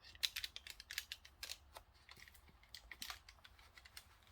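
Paper and card crackling and clicking in many small, irregular ticks as a handmade junk journal page and envelope are handled.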